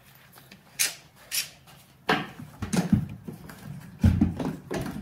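Clicks and knocks of a bar clamp being fetched and fitted onto a wooden 2x4 frame on a workbench, with a few short whines mixed in.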